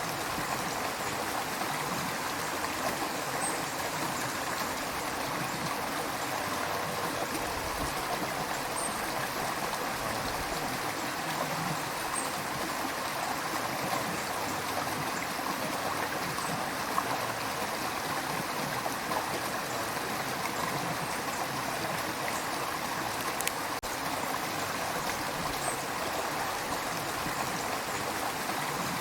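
A shallow river flowing steadily, its water rushing and gurgling.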